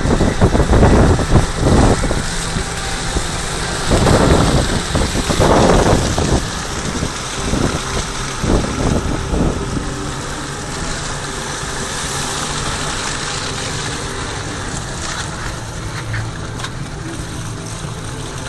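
A truck driving slowly along a snowy dirt trail: its engine runs low and steady under tyre and road noise. For the first few seconds, heavy gusts of wind buffet the microphone.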